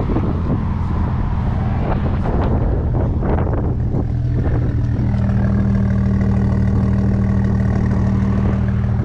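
BMW 435i's N55 turbocharged straight-six running at idle with a steady low hum, and a few short sharp sounds over it in the first half.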